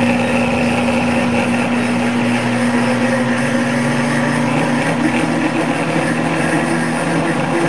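Pampered Chef Deluxe Cooking Blender running on custom blend, its motor spinning the blade through a liquid lemon pie filling with a steady whir. Its note shifts about five seconds in.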